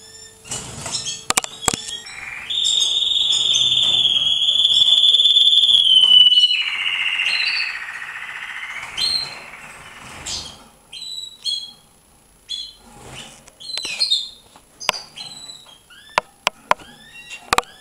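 Domestic canaries chirping and singing. About two and a half seconds in comes a long, loud trill lasting about four seconds, which drops lower and fades by about eight seconds. Short sweeping chirps and a few sharp clicks follow.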